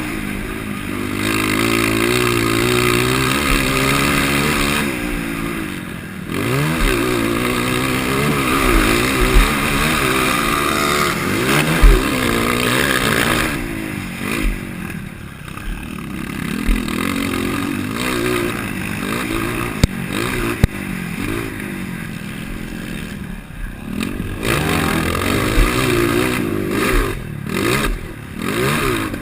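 230 cc motocross bike engine racing, its stock motor fitted with an aftermarket header and exhaust tip. The engine revs rise and fall again and again as the rider works the throttle and gears. Occasional sharp knocks and clatter come through, the loudest about twelve seconds in.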